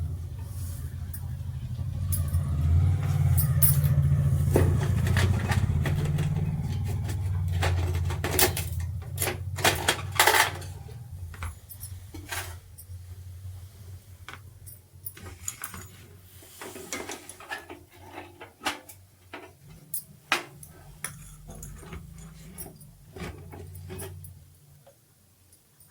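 Small metal parts and tools clinking and knocking as a room heater is worked on by hand, with a low hum under the first ten seconds or so that then fades out.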